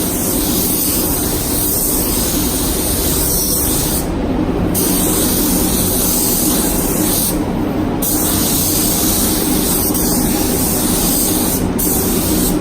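Compressed-air spray gun spraying high-build primer: a steady loud hiss, broken three times by short pauses as the trigger is let off between passes, over a steady low hum.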